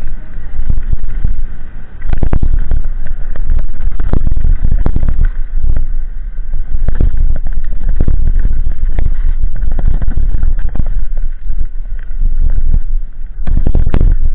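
Kona Process mountain bike rattling fast down a loose gravel trail: tyres crunching over stones and the bike clattering with frequent sharp knocks, over a heavy, loud rumble of wind buffeting the camera microphone.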